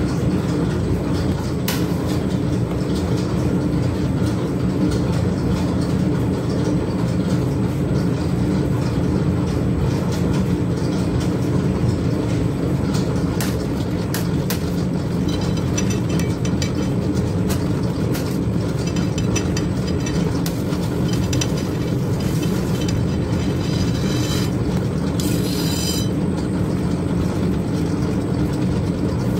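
Steady low drone of commercial kitchen machinery, with occasional light clicks.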